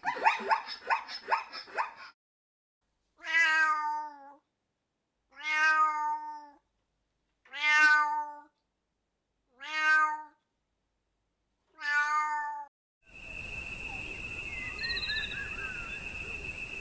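A cat meowing: a rapid stuttering call, then five separate drawn-out meows about two seconds apart, each falling slightly in pitch. Near the end the sound cuts to an outdoor background with a steady high-pitched tone and faint chirps.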